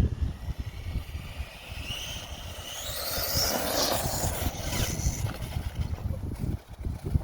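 Modified FTX Outback 2 RC crawler with a 3600 kV brushless motor and a 44-tooth pinion, its motor and gears whining as it runs flat out. The whine climbs in pitch over about two seconds, then falls away a little after the middle, over a low rumble of tyres and wind.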